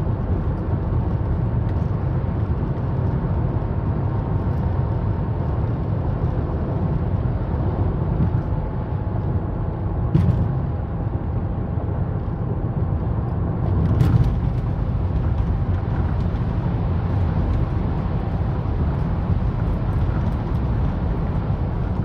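Road noise heard inside a moving car's cabin: a steady low rumble of tyres and engine, with two brief knocks about ten and fourteen seconds in.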